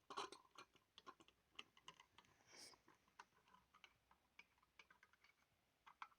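Faint, irregular small clicks and taps from close-up handling, with a brief soft hiss about two and a half seconds in.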